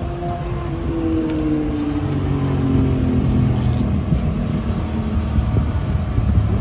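A vehicle's engine passing, its pitch falling steadily over a few seconds, over a low rumble.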